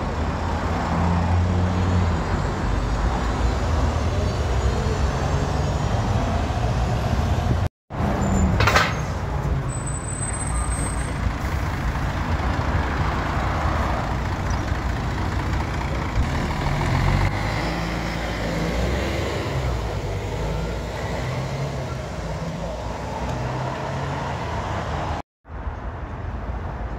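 City bus engines running close by, idling and pulling away, with a short sharp hiss of air about nine seconds in. The sound breaks off twice for a moment.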